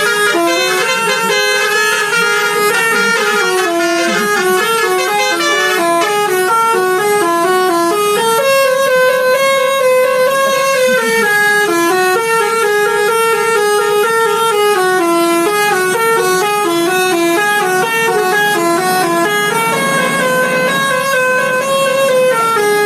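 Telolet bus horn, a multi-note air horn, playing a continuous melody of quick stepped notes.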